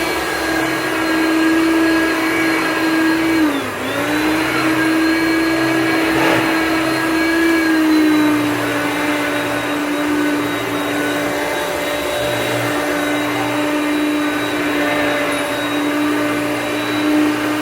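Hoover Concept Power Drive upright vacuum cleaner running with a steady motor whine. Its pitch dips briefly and recovers about three and a half seconds in, then settles slightly lower about eight seconds in.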